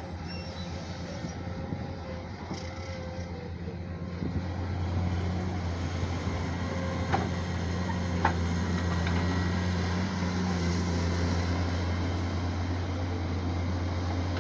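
Diesel engine of a JCB digging machine running steadily, growing louder about four seconds in as it works, with a couple of short sharp clanks.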